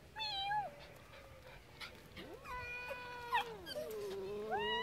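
Domestic cat growling and yowling: a short call just after the start, then longer drawn-out calls that rise and fall in pitch from about halfway on, over a low steady growl. These are the warning sounds of an agitated cat facing a dog.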